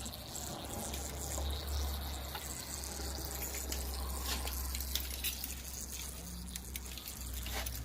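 Faint steady hiss and trickle of coolant escaping under pressure-tester pressure from leaks at the upper radiator hose and water neck of a 1996 Toyota Corolla's cooling system, over a low steady hum. The leaks show the cooling system fails to hold pressure at only about 10 psi.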